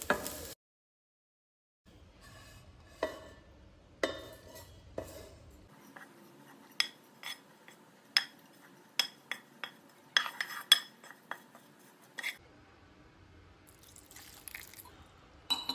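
Wooden spatula scraping and knocking fried coconut-and-onion masala out of a nonstick pan into a steel mixer-grinder jar, a long run of sharp clicks and taps. Near the end comes a short trickle of water poured into the jar.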